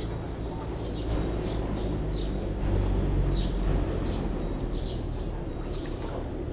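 Small birds chirping repeatedly, short high chirps over a steady low rumble that swells for a second or so around the middle.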